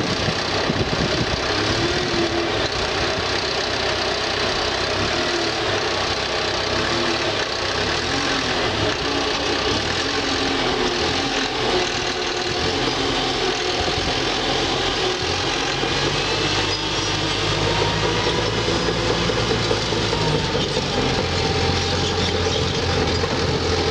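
Caterpillar crawler dozer's diesel engine running steadily under load as the machine climbs over a dirt pile on its steel tracks. Its low engine note grows stronger in the last third as it goes down the far side.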